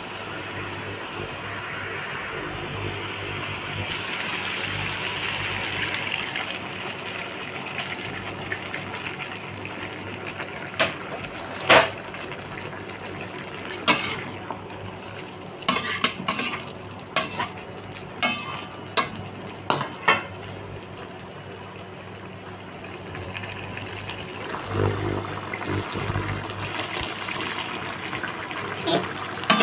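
Chicken pieces sizzling in a stainless steel wok over a steady low hum. A metal slotted turner scrapes the wok and clanks against it in a run of sharp knocks through the middle.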